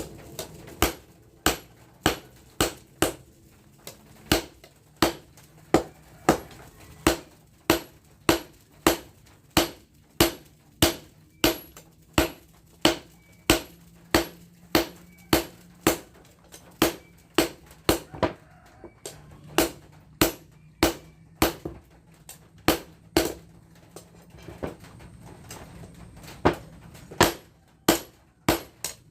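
A hammer striking a steel tractor chopper blade, about two blows a second with a short ringing after each. The blade is being beaten into a machete.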